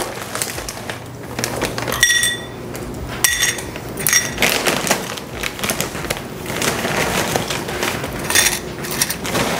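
Pretzels rattling into a small stainless steel measuring cup, with the metal cup ringing in a sharp clink twice, about two and three seconds in. A dense run of crackling and rustling follows as more pretzels go in and the plastic snack bag is handled.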